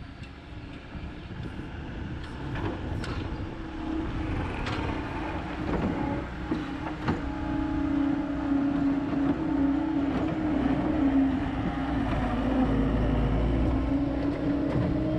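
John Deere 325G compact track loader's diesel engine running under work, growing louder through the first half and then holding steady, with a few brief clanks.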